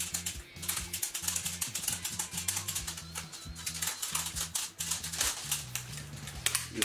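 Airsoft speed loader pushing BBs into a gas blowback rifle magazine: rapid, irregular small plastic clicks and rattles, over background music.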